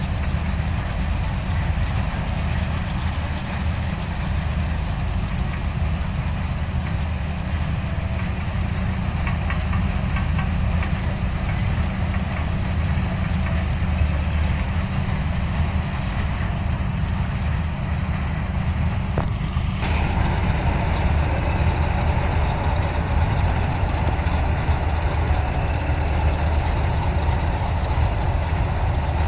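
Heavy farm-machine engine running steadily with a low drone. About two-thirds of the way through there is a click, and after it the running noise grows fuller.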